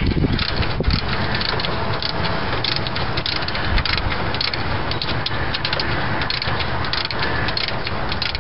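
Hand wrench turning the alternator mounting bolt: a run of irregular metallic clicks and scraping over a steady rustling noise.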